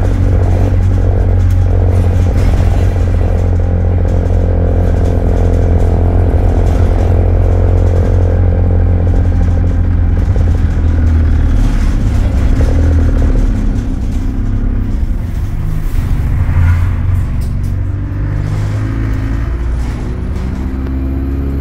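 Diesel engine of an Alexander Dennis Enviro200 single-decker bus pulling under load, a loud low rumble heard from the rear seats. About two-thirds through its pitch shifts and it eases off a little.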